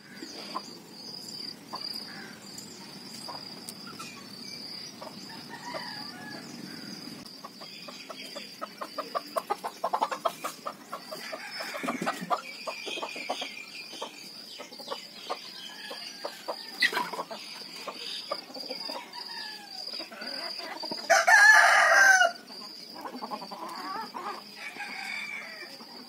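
Domestic chickens clucking and calling, with a rooster crowing once, loudly, for about a second late on. A steady high-pitched pulsing chirp runs underneath.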